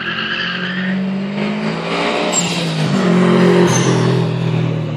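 A car driven hard on a tarmac course: the engine revs up and down, loudest about three and a half seconds in, with a few short tyre squeals.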